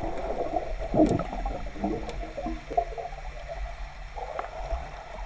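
Muffled gurgling and bubbling of pool water heard through a camera held underwater, with a louder surge about a second in.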